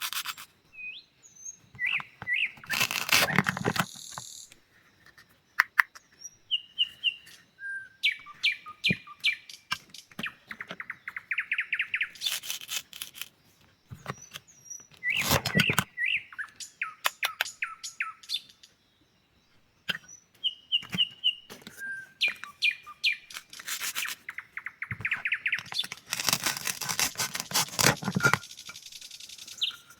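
A small bird chirping and trilling over and over in short, high calls. Several loud, rasping noisy bursts break in: about three seconds in, twice around the middle, and a longer run near the end.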